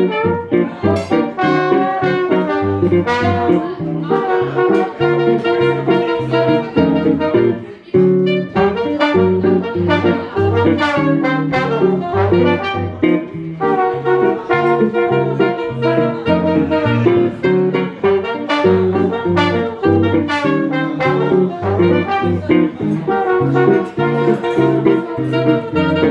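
Live swing-era jazz from a small band: alto saxophone and trombone playing the melody over a guitar accompaniment, with a brief break about eight seconds in.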